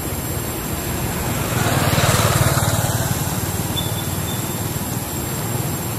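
A motor engine running steadily, growing louder about one and a half seconds in and easing off again after about three seconds.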